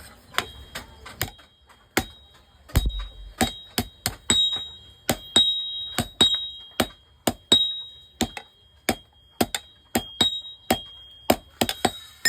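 Blacksmith's hammer striking steel on an anvil in a steady series of blows, about three a second, many with a short metallic ring after the strike.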